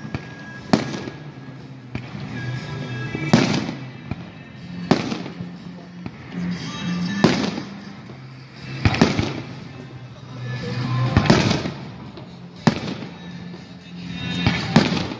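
Aerial firework shells bursting, about eight sharp echoing bangs spaced a second or two apart, with music playing underneath.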